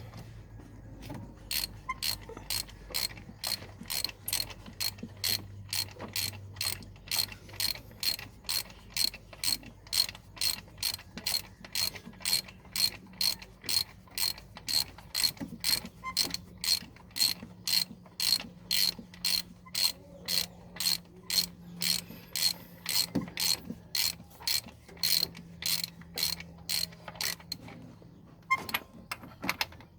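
Hand ratchet wrench clicking in an even rhythm, about two clicks a second, with a faint steady hum underneath.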